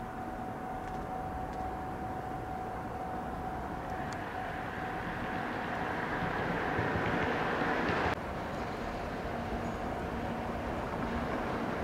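Distant train approaching, a steady low rumble and hiss under a faint constant tone. A louder hiss swells over a few seconds and cuts off sharply about eight seconds in.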